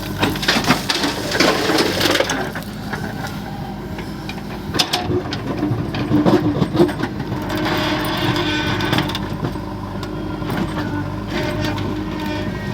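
A diesel engine on a backhoe loader running steadily. Twice, for a couple of seconds each, it is overlaid by loud rattling and clattering, as stones are dumped and scraped during loading.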